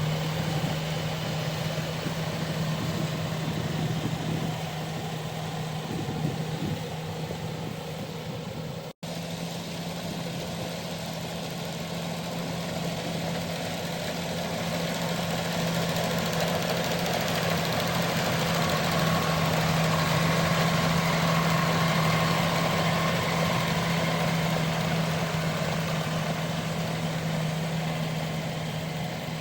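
Rice harvester's engine running steadily with a constant low hum and mechanical clatter. It grows a little louder past the middle, and the sound drops out for an instant about nine seconds in.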